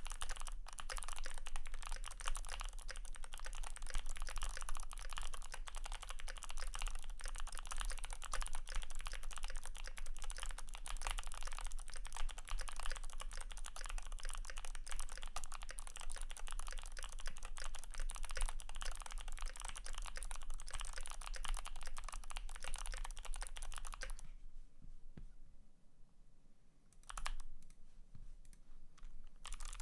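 Fast, continuous typing on a Glorious GMMK PRO mechanical keyboard with lubed Kailh Speed Bronze clicky switches, an aluminium plate and PBT keycaps. The typing stops about three-quarters of the way through, and a few scattered keystrokes follow near the end.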